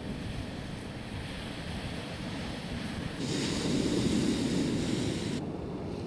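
Sea surf with wind buffeting the microphone, a steady rushing noise with low rumble. About three seconds in, a louder hiss cuts in for about two seconds and stops abruptly.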